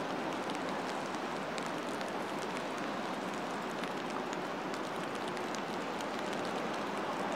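Steady outdoor background noise: an even hiss at a constant level, with faint, scattered light ticks.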